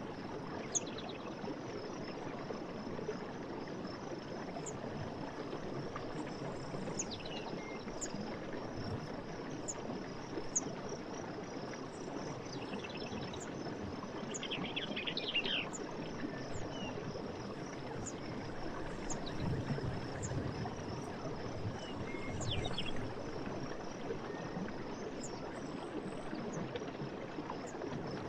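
Night forest ambience: a steady rush of flowing water under steadily trilling insects, with a high chirp about once a second. A few short bird calls come in along the way.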